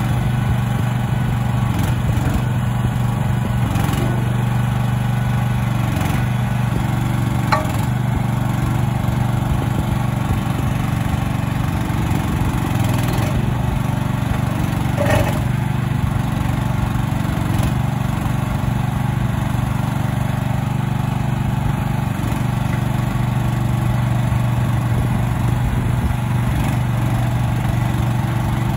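Mini excavator engine running steadily as the boom, arm and bucket are worked, with a couple of brief knocks about a third and halfway through.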